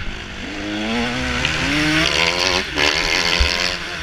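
Motocross bike engine revving under acceleration, heard from the rider's own bike: its pitch climbs, dips sharply a little past halfway as the revs drop, and climbs again. A single low thump comes near the end.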